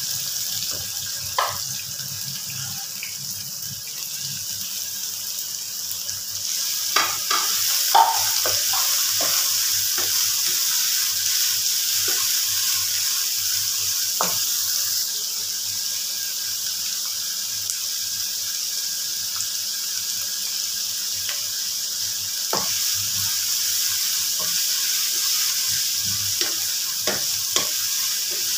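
Diced chicken, green capsicum and shredded cabbage sizzling steadily in a nonstick frying pan as they are stir-fried. A wooden spatula gives scattered knocks and scrapes against the pan, a small cluster of them about seven seconds in.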